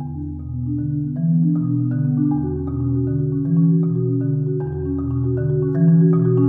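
Solo marimba played with mallets. A low bass note sounds anew every two to three seconds beneath a running line of quicker notes that climbs higher toward the end.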